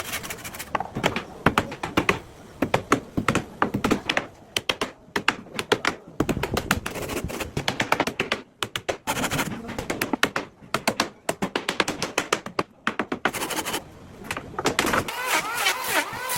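Hand tools striking wood in quick, irregular knocks and taps, as in shaping and fastening the planks of a wooden boat. Near the end a wavering pitched sound comes in.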